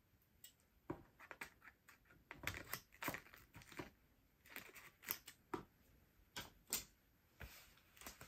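Faint, scattered clicks and rustles of packing tape being handled on a cardboard box, with scissors snipping the tape partway through.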